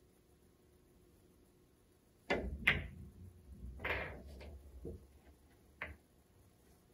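Pool shot: about two seconds in, the cue tip clicks on the cue ball and the cue ball clacks into the object ball, followed by a low rumble of balls rolling on the cloth and a ball dropping into the side pocket. Near the end a single sharp click as the cue ball bumps into another ball a little too hard.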